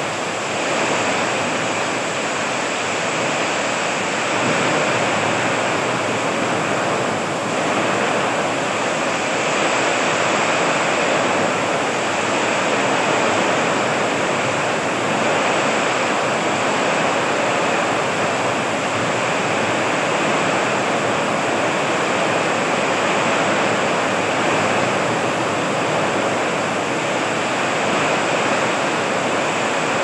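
Heavy rain pouring down in strong wind: a dense, even hiss of rainfall that swells slightly in loudness now and then.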